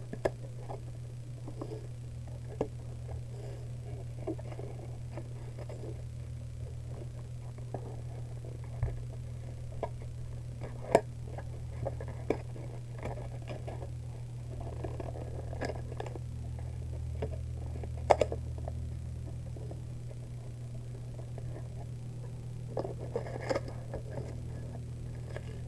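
Foil trading-card booster pack being torn open and its cards handled. Scattered crinkles and taps, with a few sharp clicks, sound over a steady low hum.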